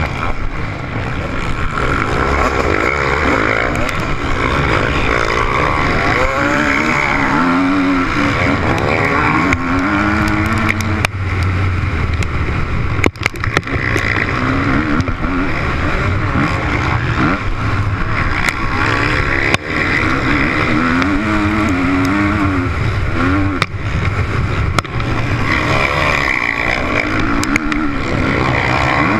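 Motocross bike engine heard close up while racing, its pitch repeatedly rising and falling as the rider works the throttle and gears, with a few sharp knocks along the way.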